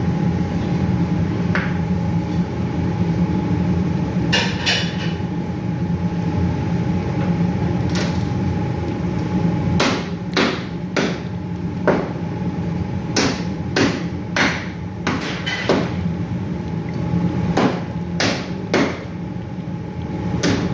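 A spoon knocking against a stainless steel pan while calamari and potatoes in sauce are stirred: scattered sharp knocks, a couple in the first few seconds and a dozen or so in quick succession through the second half, over a steady low hum.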